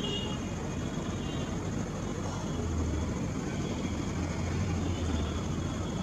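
Steady low rumble of city traffic, with a deeper hum growing stronger about halfway through.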